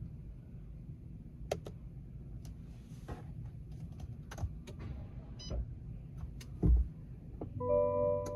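Scattered light clicks and knocks in a truck cab, with a dull thump about two-thirds of the way in. Near the end an electronic warning chime of several steady bell-like tones starts sounding from the Silverado's dashboard, one of its multiple warning alerts.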